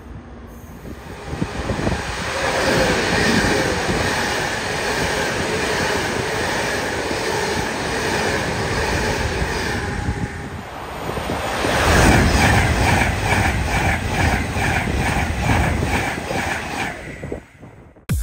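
A train passing at speed. It builds up about a second in and runs loud with a steady whine, then a regular clatter of wheels over rail joints, about two or three beats a second, before fading near the end.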